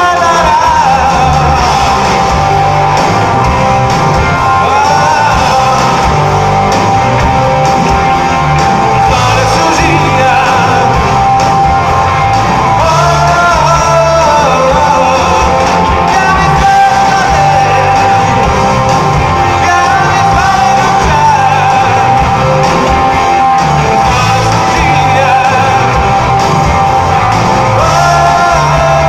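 Rock band playing live in a large hall: electric guitars, bass and drums with singing, heard from among the audience.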